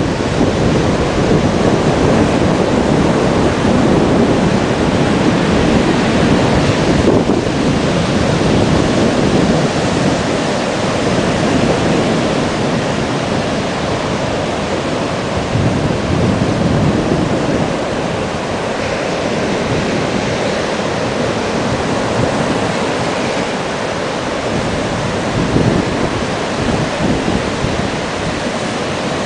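Sea waves and surf making a steady rushing noise, with wind buffeting the microphone.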